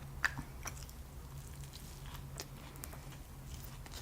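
Close-miked chewing of chicken tandoori with mango chutney: scattered wet mouth clicks and smacks, the loudest about a quarter second in, over a low steady hum.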